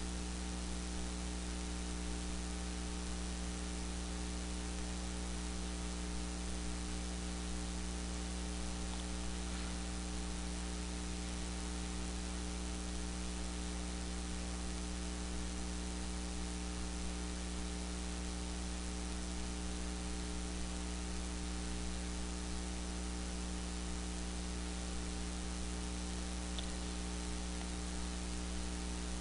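Steady electrical hum made of several fixed low tones, over a constant hiss, unchanging throughout.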